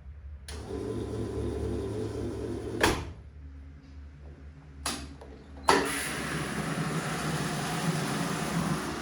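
Gorenje PS 060 A washing machine running, a steady mechanical hum and hiss that cuts off after a sharp click about three seconds in. Another click comes near five seconds, and a louder, noisier running sound starts abruptly at about six seconds.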